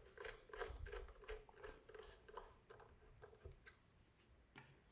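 Faint, irregular small clicks and ticks of a hex screwdriver turning screws into the plastic base plate, in near silence. The clicks thin out in the second half.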